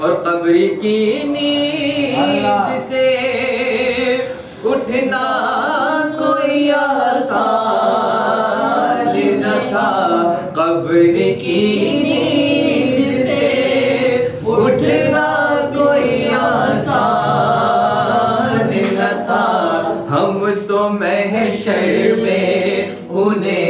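A man singing an unaccompanied Urdu devotional naat in the sung style of a milad gathering, with long, wavering, ornamented lines and no instruments.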